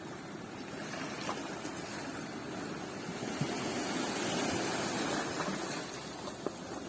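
Sea waves washing onto the beach: a steady rush that swells about halfway through and eases off again, with a few faint ticks.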